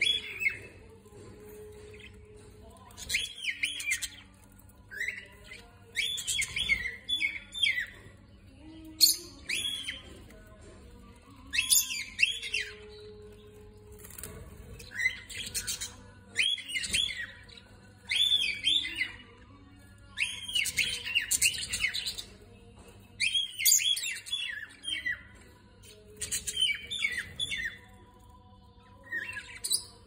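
Small caged parrots, budgerigars and rosy-faced lovebirds, calling: repeated bursts of shrill chirps and squawks about every two seconds, with short pauses between them.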